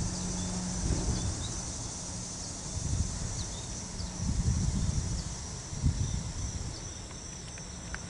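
Steady, high-pitched chorus of insects, with a few short faint chirps, over low rumbles that come and go, strongest about halfway through and again near six seconds.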